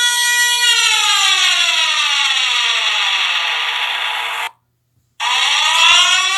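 Warning siren holding a steady pitch, then winding down in a long falling glide. About four and a half seconds in it cuts off abruptly, then returns under a second later, rising again.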